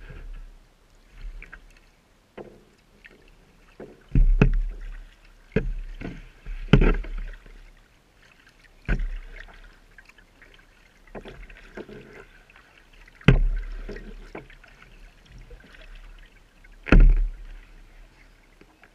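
Kayak paddling on calm water: about eight paddle strokes at uneven intervals, each a splash with a dull low thump, from a Pelican Quest 100 sit-in plastic kayak.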